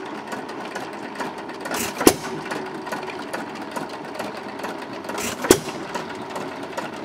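1917 5 HP Empire hit-and-miss engine running, firing with a sharp bang twice, about three and a half seconds apart, and coasting on its flywheels between. Under it, the chain drive and the two White Mountain ice cream makers clatter steadily.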